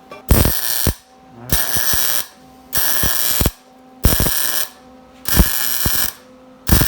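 A shop power tool worked on steel in six short bursts about a second apart, each starting sharply with a crackling hiss.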